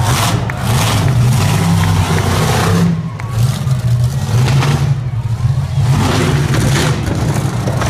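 Monster truck engine running loud and revving as the truck drives across the dirt arena, its note rising and falling with repeated surges of throttle.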